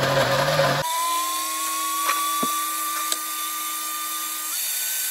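Electric blender running on carrots, eggs, milk, oil and sugar: a loud, dense grinding churn for about the first second, then a steady motor whine that slowly creeps up in pitch and steps higher near the end.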